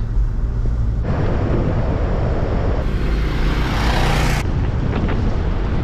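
A car driving along a road: a steady rumble of engine, tyres and wind, which changes abruptly about a second in and again around three and four and a half seconds in.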